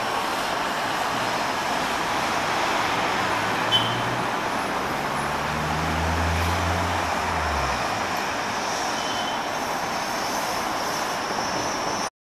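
Steady street traffic, cars and city buses passing. A bus engine's low hum swells from about four seconds in and fades out near eight seconds as the bus passes below. A brief high chirp comes just before four seconds.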